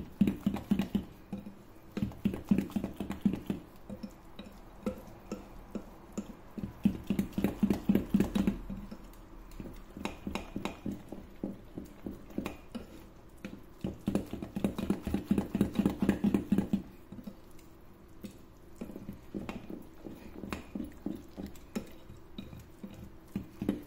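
Wire whisk beating thick cake batter by hand in a glass bowl: rapid strokes, the wires clicking against the glass, in bursts of a few seconds with short pauses between.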